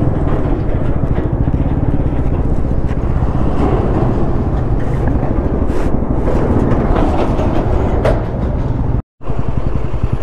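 Motorcycle riding at speed, with the engine running under heavy wind noise on the rider's microphone. The sound cuts out for a moment about nine seconds in.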